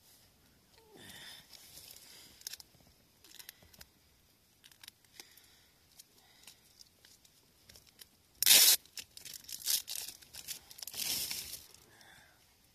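Plastic sausage wrapper being crinkled and torn open: small crackling rustles, a sharp loud rip about eight and a half seconds in, then a second, longer tearing rustle a couple of seconds later.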